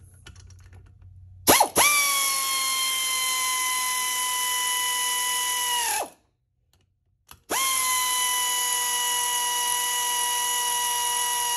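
Cordless electric ratchet running two 13 mm bolts down. The motor whine spins up, holds a steady pitch for about four to five seconds and winds down, then does the same again after a short pause.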